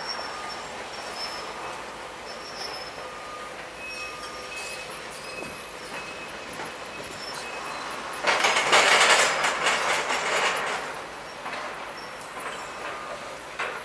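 Link-Belt excavators demolishing a building: a steady clatter of machinery and debris with short, high metal squeals that come and go. About eight seconds in comes a loud crash and clatter of falling wreckage that lasts two to three seconds.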